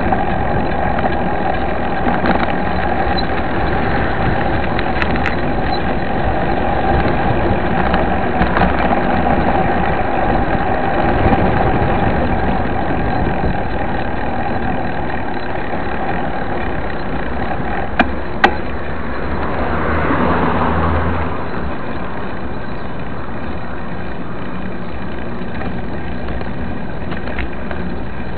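Mountain bike rolling over rough asphalt, heard through a bike-mounted camera: a steady rumble and rattle of tyres and frame carrying a faint hum. Two sharp knocks come about two-thirds of the way through, followed by a brief swell of louder noise.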